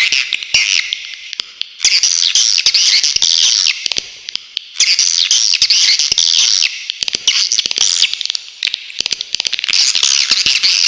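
Swiftlet calls: repeated bursts of rapid, high-pitched twittering chatter, each a second or two long with short gaps between, over a scatter of sharp clicks.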